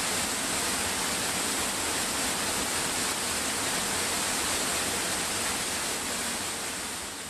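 Steady rushing roar of a waterfall, beginning to fade out near the end.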